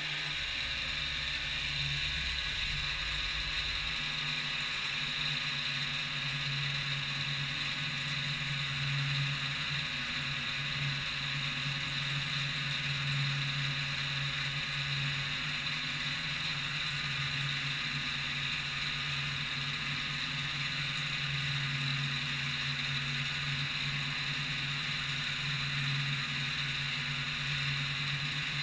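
CNC milling machine running a toolpath on a metal part: a steady spindle whine over a low machine hum, unchanging throughout.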